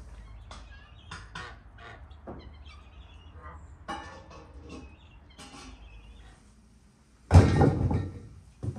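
Light metallic clinks, taps and scrapes of a ladle and lid against a large aluminium cooking pot, over a low steady hum. About seven seconds in comes a louder thump, dying away over about a second.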